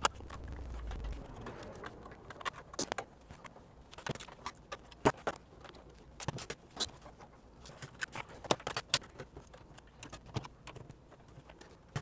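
Scattered light clicks and clinks of parts being handled as a rackmount server is taken apart, irregular and a few per second.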